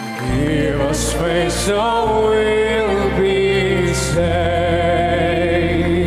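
A slow song sung live by a woman's voice with vibrato, over an instrumental backing track with steady low bass notes; the bass moves to a new, lower note about four seconds in.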